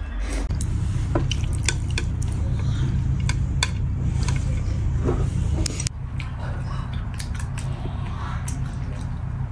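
Chopsticks clicking against small porcelain bowls and plates while a person eats, a scattered run of light clicks over a steady low hum.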